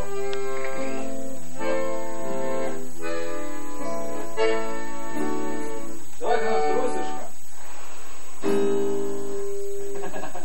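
Accordion playing a tune in held chords that change every half second or so.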